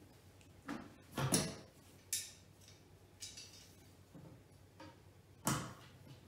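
Knocks, taps and scrapes of IKEA Malm chipboard drawer panels being handled and fitted together: several separate short sounds a second or so apart, the loudest about a second in and another strong one near the end.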